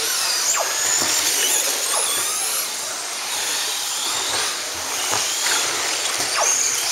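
Several radio-controlled off-road cars with electric motors whining as they race, with repeated quick whines falling in pitch as the cars pass, let off or brake.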